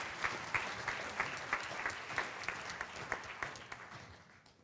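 Audience applauding, many hands clapping at once, dying away about four seconds in.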